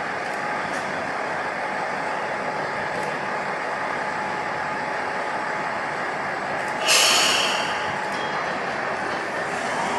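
Noto Railway NT200-series diesel railcar idling steadily at the platform. About seven seconds in there is a sudden sharp hiss of compressed air from its pneumatic system, fading within about a second, as it readies to depart.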